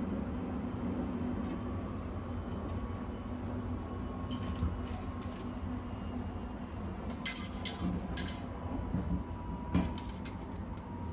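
Change coins clinking down into the coin-return tray of a shower-card vending machine, in a few quick bursts, then fingers scooping them out of the metal tray near the end. Under it runs the steady low rumble of the moving train.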